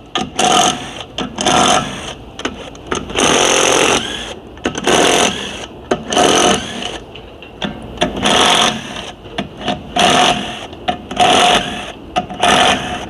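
Cordless stubby impact wrench hammering in a dozen or so short bursts, with one longer run about three seconds in, as it works the bolts of a CVT case.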